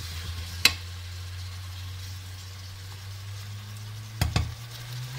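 Onion, garlic and spices sizzling in oil in an aluminium pressure cooker, stirred with a wooden spoon, over a steady low hum. A sharp knock of the spoon on the pot comes about two-thirds of a second in, and two more come near the end.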